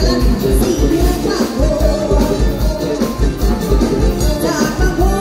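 Live band music played loud through a stage PA, with an evenly pulsing bass beat and a woman singing the melody into a microphone.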